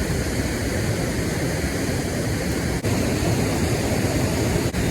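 Steady rushing noise of flowing river water, with two very brief dropouts about three seconds in and near the end.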